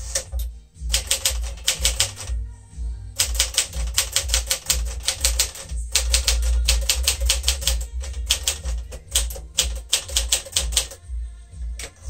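1959 Smith-Corona Sterling manual portable typewriter typed on at speed: fast runs of clacking key and typebar strikes, broken by short pauses. The carriage is thrown back with the return lever about a second in and again near the end.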